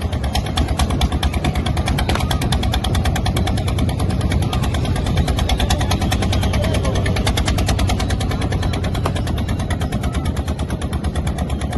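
Fishing boat engine running steadily: a rapid, even knocking over a deep rumble.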